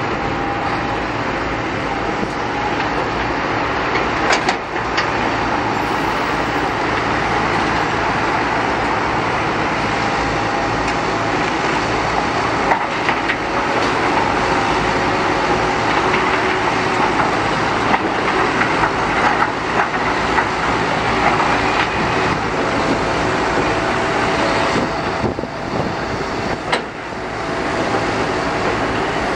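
Heavy diesel construction machinery running steadily, with scattered knocks and clanks.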